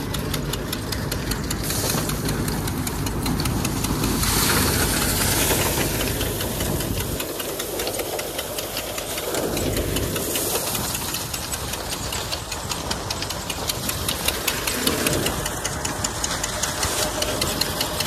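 Groundnut thresher running steadily with a fast, even clatter as groundnut plants are pushed into its hopper and threshed.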